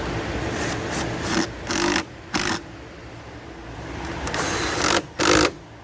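Cordless electric ratchet running in several short bursts, buzzing as it drives an 8 mm hose clamp tight on the intake duct.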